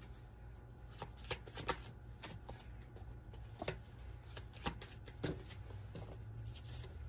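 A deck of cards being shuffled by hand: soft, irregular taps and clicks of cards slipping against each other, over a faint steady low hum.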